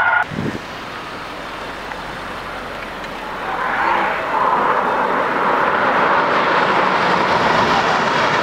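Cars speeding on a road: a steady roar of engine and tyre noise that grows louder about three and a half seconds in.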